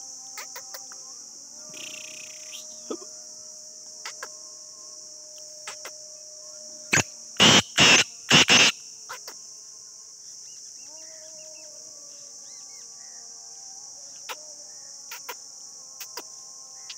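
Black francolin calling: four loud notes in quick succession over about a second and a half, about seven seconds in. A steady high chorus of crickets runs underneath.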